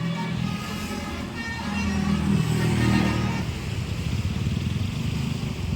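A bus's 'basuri' telolet musical horn plays a short run of changing notes over the low running of the bus's engine. The horn stops about three and a half seconds in, leaving the engine's fast low throb.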